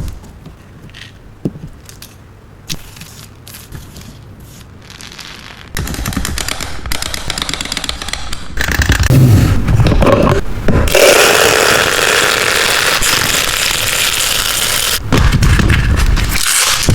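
Miniature toy kitchen set being handled: a few light clicks, then scraping and a crackling hiss that starts about a third of the way in and grows louder about halfway through.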